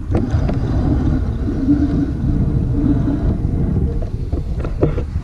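Wind buffeting the microphone in a dense low rumble. Under it a steady low hum runs until about four seconds in, and a few light knocks follow near the end.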